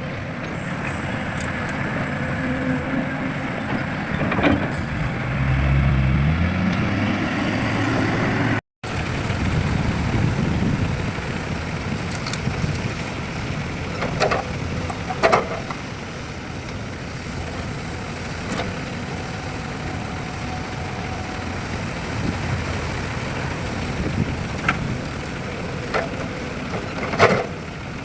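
Heavy diesel machinery running steadily: excavator and dump truck engines, with a few short sharp sounds over the top. The sound cuts out for a moment about a third of the way through.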